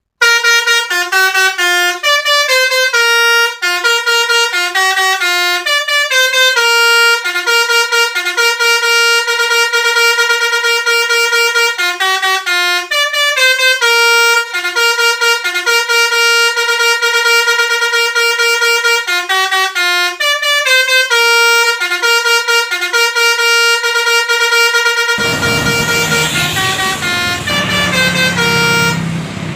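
Basuri 'telolet' multi-tone musical bus horn playing a fast, repeating melody of short stepped notes, starting abruptly. About 25 seconds in, engine and road noise come in under the last horn notes.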